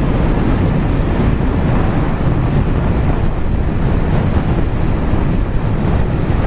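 Steady wind noise rushing and buffeting over a helmet-side microphone on a moving motorcycle, with the Kawasaki Z800's inline-four engine running underneath.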